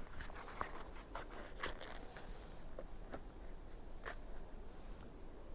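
A few faint, irregular clicks and rustles, most in the first two seconds and one sharper tick about four seconds in, over a low steady background hiss: small handling noises.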